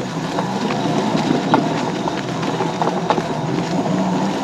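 High-speed mobility scooter riding over a rough off-road trail: a steady electric motor hum with scattered knocks and rattles from the bumps.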